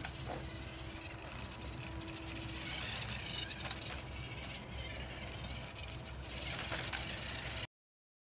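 Small wheeled robot driving over pavement: a steady motor hum with its wheels rolling, and a few sharp clicks and knocks as it bumps along. The sound cuts off suddenly near the end.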